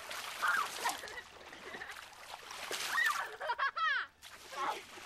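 Water splashing repeatedly in a shallow river, with girls laughing and squealing over it; a loud high squeal comes near the end of the splashing.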